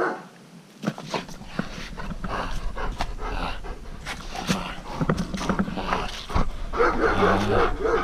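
A puppy panting and making small cries, with scattered clicks and knocks of handling throughout. Its louder cries come near the end.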